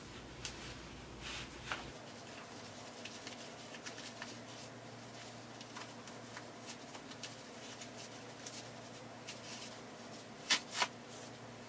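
Denim fabric rubbing and rustling in the hands as a sewn belt tube is pushed through itself to turn it right side out: faint, scattered handling sounds, with two sharper clicks close together near the end.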